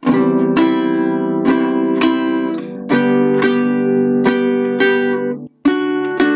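Guitar backing track of strummed chords, a new strum about every half second. It breaks off briefly near the end, then carries on.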